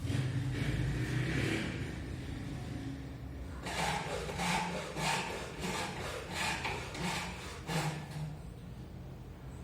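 A quick series of about ten short scraping strokes, roughly two or three a second, over a low steady hum.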